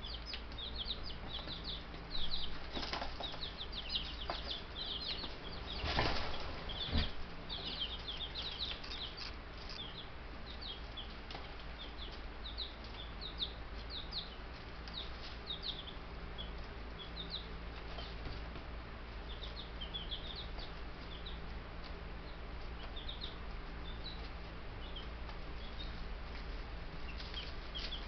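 Baby Buff Brahma chicks peeping: many short high peeps, busiest in the first ten seconds and thinning out after. Two brief louder bursts of rustling or fluttering about 3 and 6 seconds in, over a steady low hum.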